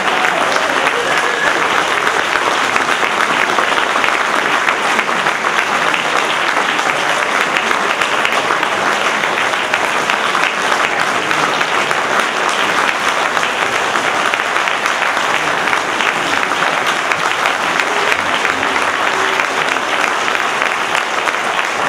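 Theatre audience applauding at a curtain call: dense, steady clapping that holds at an even level without letting up.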